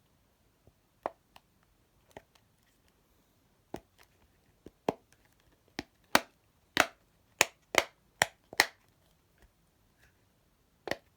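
Silicone pop-it fidget board having its bubbles pressed through, one sharp pop at a time. The pops are soft and sparse at first, then a run of louder pops starts about six seconds in, the board being popped quietly and then noisily.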